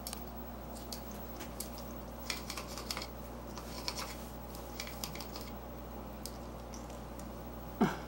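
African grey parrot picking at mango in a plastic food cup: a scatter of light beak clicks, taps and scratches over a steady low hum, with a louder brief sound at the very end.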